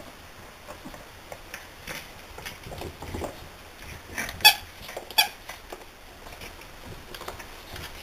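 French bulldog puppies tussling over toys: soft scuffling and rattling, with two sharp, high squeaks a little under a second apart about halfway through.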